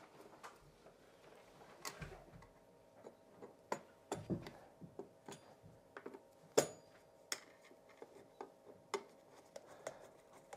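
Scattered faint clicks and light metallic taps of a hand screwdriver working the adjusting screws of a floor outlet box, irregular, with the loudest knock about six and a half seconds in.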